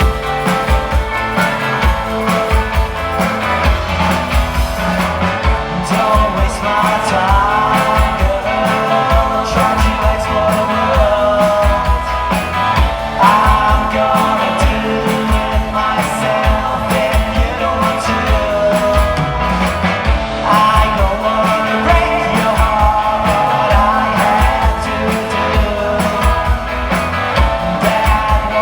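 Pop-rock band playing a song, with drums and bass driving a steady beat and a singer's voice coming in about six seconds in.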